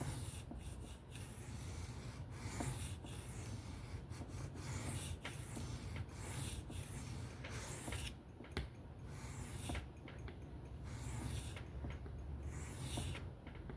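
Folding knife blade being stroked freehand across a sharpening stone: a steady run of gritty scraping strokes, roughly one or two a second. The blade is pressed down to grind a new bevel angle, raising a burr along that side.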